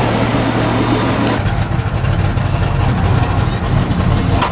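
A 1973 GMC pickup's 307 V8 running, heard inside the cab, as the truck drives out of flood water. Water sprays and splashes against the truck for about the first second and a half, then stops, leaving the engine's low rumble.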